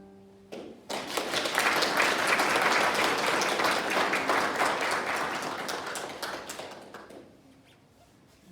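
Audience applauding, starting about a second in as the last piano notes die away, then fading out near the end.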